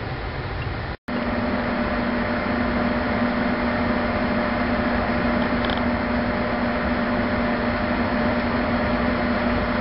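Aquarium pump humming steadily: a constant low hum with a fainter higher tone over a bed of noise. It breaks off briefly about a second in and comes back louder.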